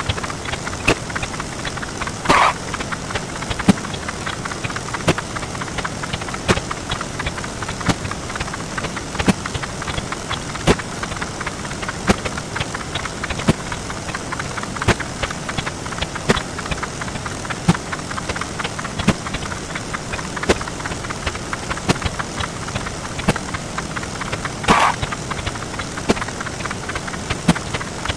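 A dense stream of sound effects sped up many times over, which blurs into a steady crackling hiss. Sharp clicks come through about every second and a half, and louder bursts come about two seconds in and near the end.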